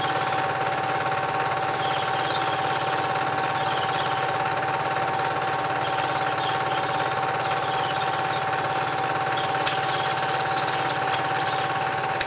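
Cine film projector running: a steady mechanical whirr with a rapid, even clatter and a constant hum tone.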